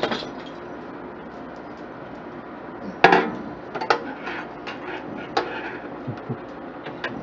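Scattered sharp metallic clinks and knocks of hand tools against a computer case and its parts, the loudest about three seconds in.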